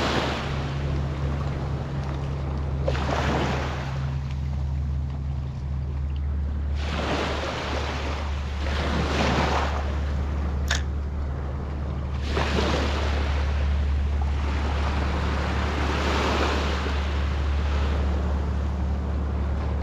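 Ocean surf washing onto the beach, a rushing wash swelling and fading every two to four seconds, over a steady low rumble of wind on the microphone.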